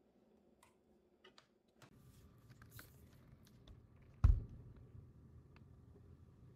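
Soft, scattered clicks of laptop keys or trackpad over a low room hum, which steps up about two seconds in. One dull thump a little past four seconds in is the loudest sound.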